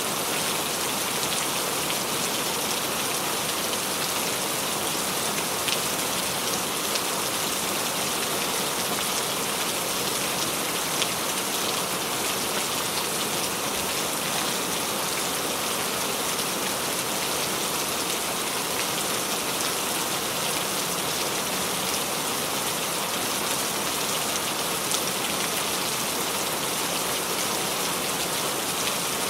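Steady, even rain falling on a surface, with a few separate drops ticking now and then.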